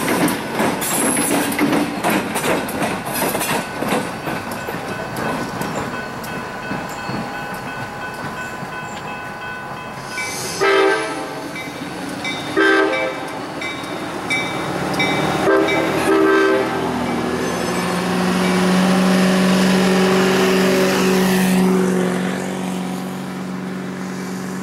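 Diesel locomotives rolling over a grade crossing, wheels clicking over the rail joints. Around the middle, a locomotive horn sounds four short blasts, followed by a steady low hum for a few seconds.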